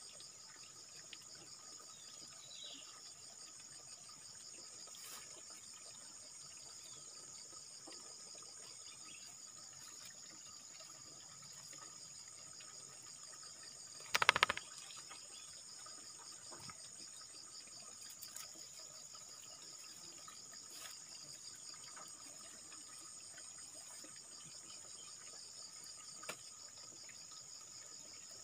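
Steady high-pitched, pulsing insect chorus, with a brief loud burst of noise about halfway through.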